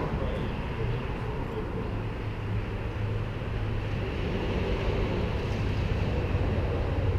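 Car engine running with a steady low hum and road noise, heard from inside the car.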